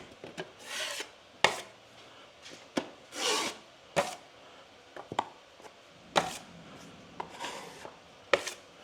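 A drywall knife scraping cornice cement into holes in a plaster wall: a few short scraping strokes, with sharp clicks and taps of the blade in between.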